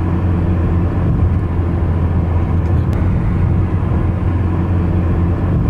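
Steady low drone of a vehicle in motion heard from inside the cabin, with a constant deep hum and a bed of running noise.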